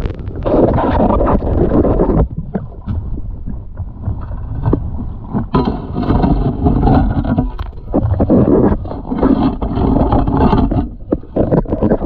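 Water rushing and sloshing heard from underwater in a shallow river: a continuous low rumble that swells and fades, with many small clicks and scrapes of boots and a wading stick on the gravel riverbed.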